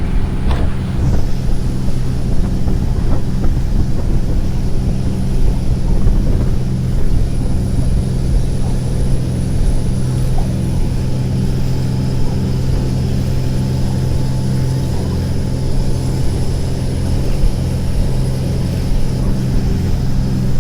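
Parasailing boat's engine running steadily under way, a constant low drone that holds its pitch.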